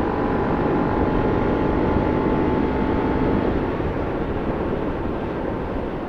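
Motorcycle riding at highway speed as heard from a helmet-mounted microphone: steady wind rush, muffled by a latex glove over the mic, during a head check, over the steady hum of the bike's engine. The engine's tone fades after about four seconds, leaving mostly wind.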